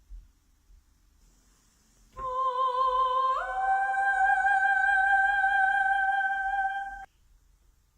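A voice-like held note with a slight vibrato. About a second later a second note a fifth higher joins it. Both are held for about four seconds, then cut off together.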